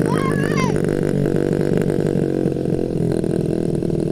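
Honda CRF50 dirt bike's small single-cylinder four-stroke engine running at a steady speed, with a brief voice under a second in.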